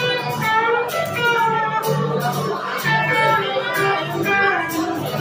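Live band music: an acoustic guitar strummed with an electric guitar playing along, at a steady loud level.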